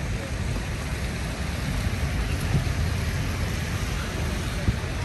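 Heavy rain falling: a steady hiss over a low rumble.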